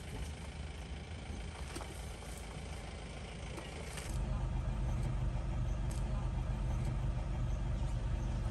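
Safari jeep engine idling with a steady low rumble, turning into a louder, steadier hum about four seconds in.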